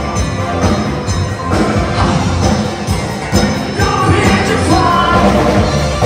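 A live band playing: singing over electric guitar and a drum kit with a steady beat.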